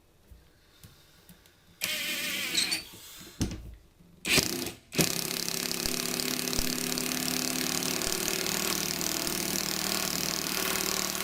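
Cordless impact wrench with a screwdriver attachment, driving a screw into wood. A short run comes about two seconds in, then a brief loud burst, then a long steady run from about five seconds that does not slow down and stops near the end.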